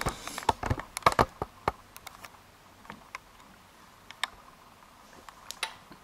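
Light clicks and taps of handling at a workbench as the camera is repositioned over a pin tray: a quick cluster in the first two seconds, then a few single ticks.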